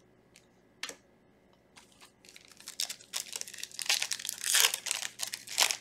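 A single click just under a second in, then from about two seconds in the dense, irregular crinkling of a foil Yu-Gi-Oh booster pack wrapper being handled and opened.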